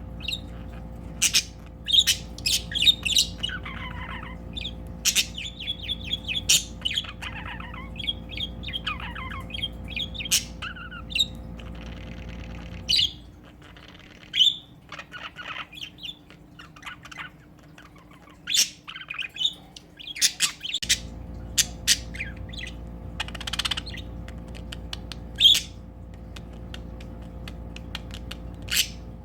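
Budgerigars chirping, with sharp squawky calls and short falling warbles: a male budgie's courtship chatter toward a female. The calls are denser in the first ten seconds and sparser afterwards.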